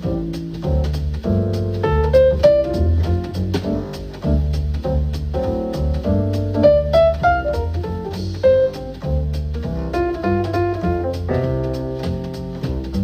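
Jazz music with double bass and piano, played back through a Bugani Brief Pro Bluetooth speaker in a sound test.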